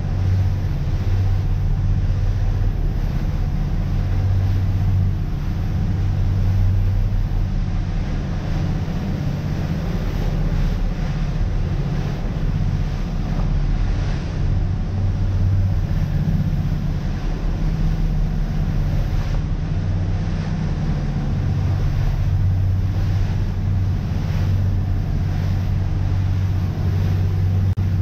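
Motor cruiser's engines droning steadily under way at cruising speed, mixed with rushing water along the hull and wind buffeting the microphone.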